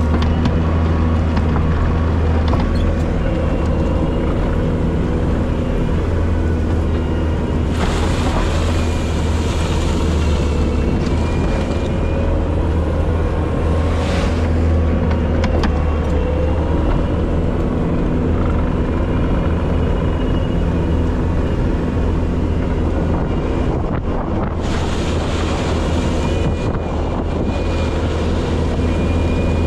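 Bobcat T770 compact track loader's diesel engine running steadily with a deep drone while the machine works. Three times a short rush of higher-pitched noise rises over it: once about a quarter of the way in, briefly near the middle, and again for a couple of seconds near the end.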